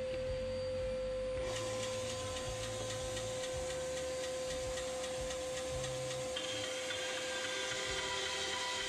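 Workshop fan and bandsaw motors running steadily. A louder motor noise starts about a second and a half in, and a higher whine joins near the end.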